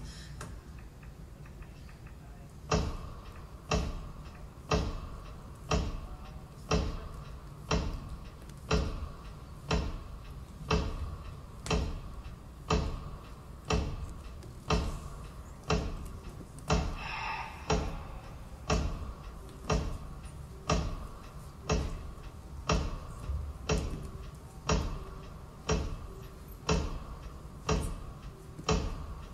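Clock ticking in the dance's soundtrack: sharp, even ticks about once a second, starting about three seconds in, over a faint steady tone.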